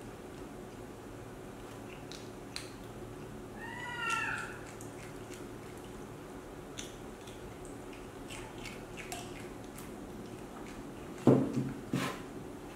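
Baby macaque giving one short, squeaky, rising-and-falling call about four seconds in, over small clicks of eating and utensils. A brief, louder low sound comes near the end.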